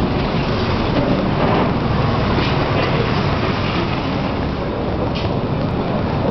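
Steady, loud din of road traffic, with no distinct events standing out.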